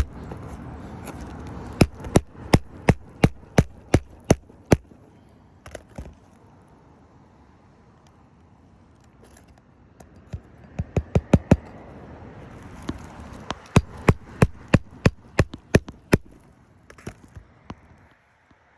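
Hammer blows on an asphalt shingle roof, coming in quick runs of about three sharp strikes a second, with a quieter pause in the middle.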